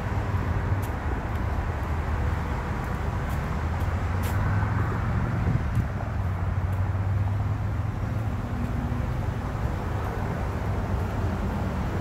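Steady low rumble of distant road traffic, with no single vehicle standing out.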